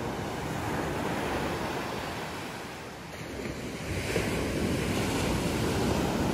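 Sea waves washing onto a beach, with wind buffeting the microphone; the surf dips and then surges louder about two thirds of the way through.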